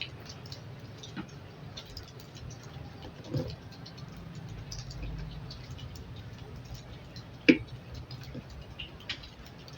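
Scattered light clicks and taps of small hand tools working on a TV circuit board while a replacement MOSFET is fitted, with a duller knock about three and a half seconds in and one sharp, loud click about seven and a half seconds in.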